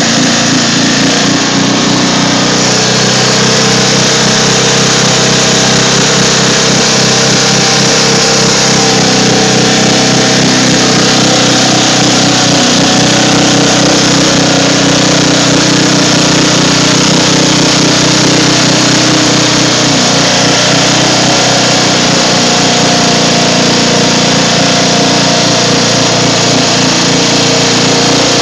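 Riding lawn mower's small engine running steadily and loud as the mower drives through water, with water splashing and spraying around the front wheel.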